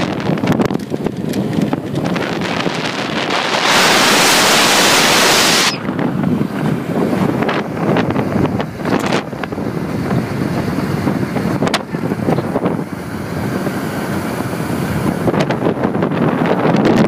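Wind buffeting the microphone while riding at speed on a motorcycle: a steady rushing noise with louder gusts, the strongest lasting about two seconds from about four seconds in.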